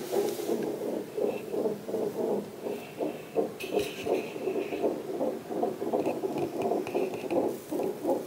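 Unborn baby's heartbeat played through a fetal monitor (cardiotocograph) from its Doppler ultrasound transducer strapped to the mother's belly: a fast, even pulsing.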